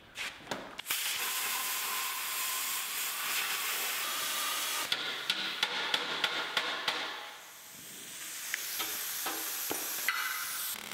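Plasma cutter hissing steadily as it cuts through sheet metal. The hiss starts about a second in after a few clicks, and drops off briefly about three-quarters of the way through before coming back.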